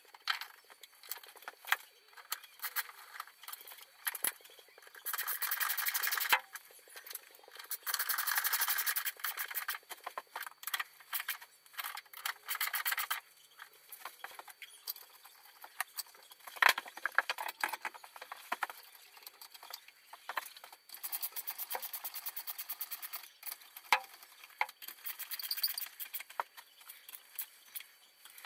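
Socket ratchet clicking in quick runs of a second or more as engine-mount bolts are turned, with scattered single sharp clicks and knocks of the tools in between.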